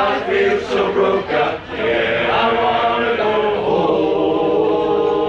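Male voice choir singing together, holding long sustained notes in harmony, with a brief break about a second and a half in.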